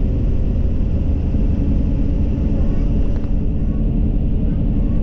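City bus under way: steady low engine and road rumble.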